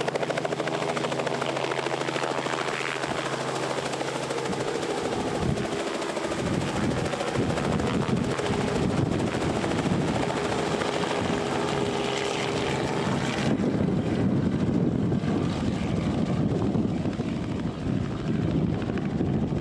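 Helicopter running: a steady, loud rotor and engine noise.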